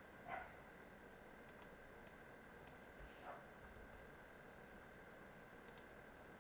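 A few faint, sharp computer mouse clicks, two of them quick double-clicks, over near-silent room tone with a faint steady high whine.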